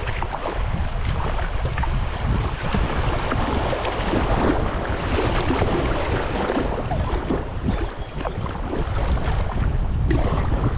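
Water splashing and rushing around a kayak under way, with irregular paddle splashes and wind buffeting the microphone.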